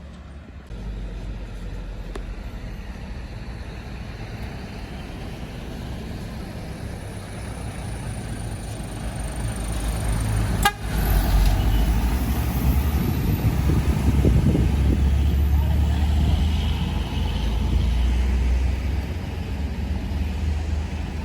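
UD Quester truck's diesel engine pulling hard up a steep climb, a low rumble that grows louder about halfway through, with a sharp click just before it peaks.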